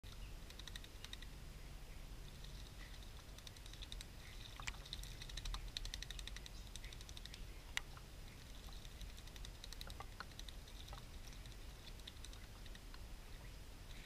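European starlings bathing in a bird bath, making a rapid, uneven clicky patter of splashing water, with one sharper click a little past the middle.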